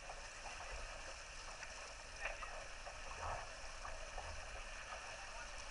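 Water rushing along the hull of a Laser 4000 sailing dinghy under way, a steady hiss with a few louder splashes of spray against the bow.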